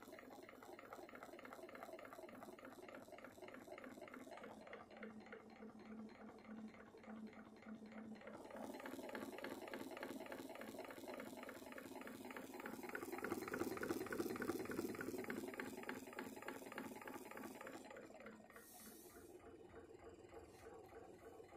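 Homemade pulse motor and its driver circuit running: a fast, even pulsing as the drive coil is fired to keep the heavy magnet flywheel turning, while the circuit's timing knob is tuned. The pulsing grows louder a little past halfway, then eases.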